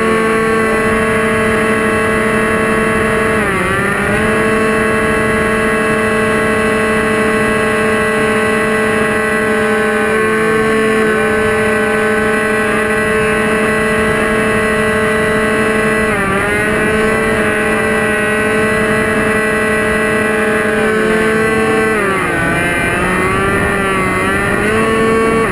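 RC model plane's motors and propellers running at a steady high whine, with air rushing over the microphone. The pitch dips briefly about three and a half seconds in and again around sixteen seconds, then sags and wavers near the end as the throttle is eased.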